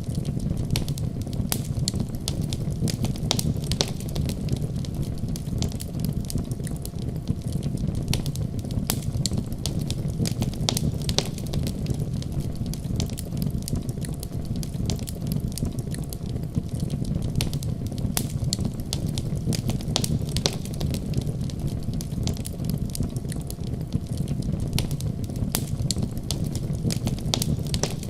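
Wood fire in a fireplace crackling, with many irregular sharp pops and snaps over a steady low rumble.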